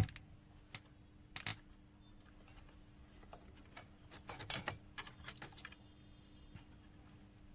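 Scattered small clicks and light metallic rattles from hands working on the amplifier's wiring and connectors, busiest about four to six seconds in, over a faint steady hum.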